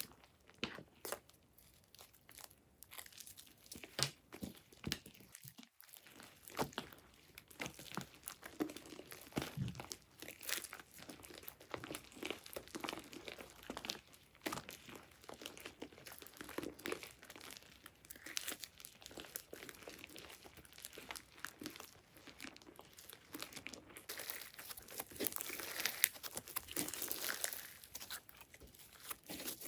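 Crunchy slime being worked by hand: dense crackling and crinkling with many small clicks and pops, busiest a few seconds before the end.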